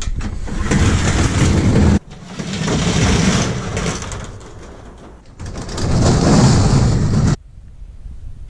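Corrugated metal roll-up garage door rattling as it rolls, in three long stretches, two of which cut off suddenly.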